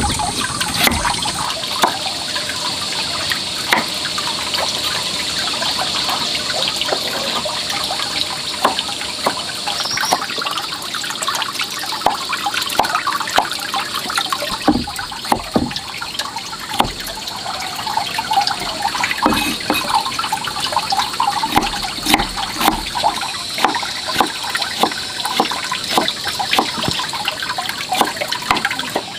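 Water running and splashing, with many small irregular clicks and knocks throughout.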